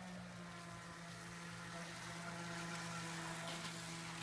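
Radio-controlled model speedboat motors running at speed on the water, a steady pitched drone.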